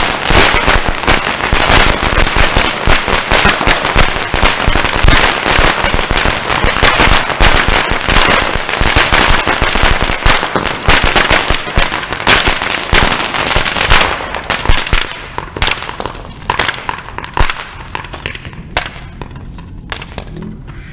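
Ground fountain firework spraying sparks, with a dense, continuous crackle of sharp pops over a steady hiss. About fifteen seconds in the crackle thins out to scattered pops, and the fountain dies down near the end.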